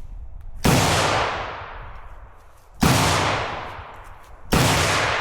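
Rifle firing three single shots about two seconds apart, each with a long fading echo. The shooter is emptying the last rounds of a 30-round magazine.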